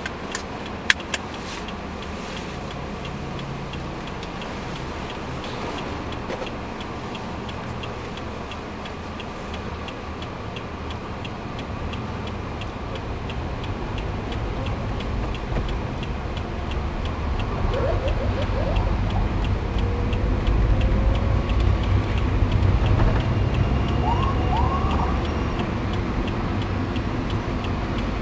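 Car engine and road noise heard from inside the cabin, growing louder as the car speeds up about halfway through, with a steady ticking all along. A few short siren whoops come from the escorting police motorcycles near the end.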